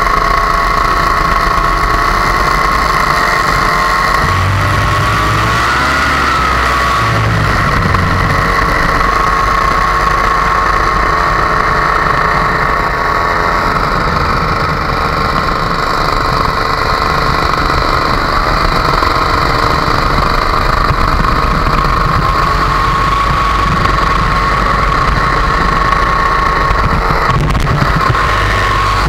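Paramotor engine and propeller running steadily in flight. Its pitch dips and recovers slightly a few times.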